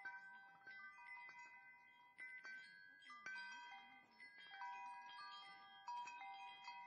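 Faint chimes ringing, struck at irregular moments at a handful of fixed pitches, each note ringing on for up to a second or more, as from a wind chime.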